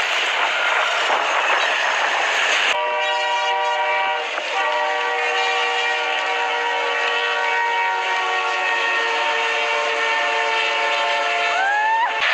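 Rushing noise of a snowplow train throwing snow, which cuts off suddenly about two and a half seconds in. Then a diesel locomotive's air horn sounds one long, steady blast lasting about nine seconds.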